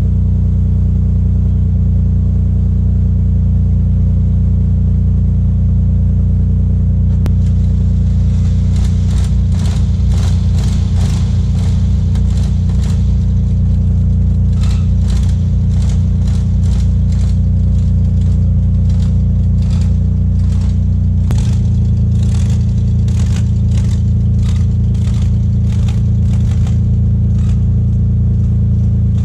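Toyota 1JZ turbo straight-six in a 350Z idling steadily, warming up just after starting. Its idle steps down about two-thirds of the way through, and a fast rhythmic ticking runs over it from about a quarter of the way in.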